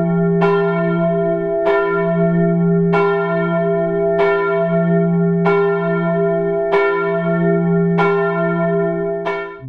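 A single large church bell tolling, struck eight times at an even pace of about one stroke every second and a quarter, each stroke ringing on into the next. The ringing stops abruptly at the very end.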